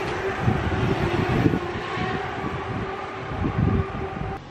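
City street traffic noise: a steady mechanical hum over a low rumble of passing vehicles, with a couple of louder surges around the middle, cutting off abruptly at the end.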